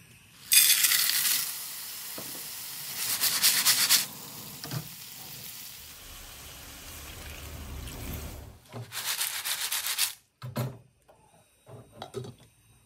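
Hot oil sizzling loudly in a frying pan with garlic and wedge clams, starting about half a second in. Near nine seconds a second, sharper hiss as water is poured into the hot pan, and near the end a few knocks and clinks as a glass lid is set on the pan.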